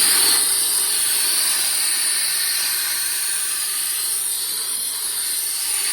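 Car wash air machine blowing a steady, loud hiss of air through the back vents of a PlayStation 5 console to clear out dust.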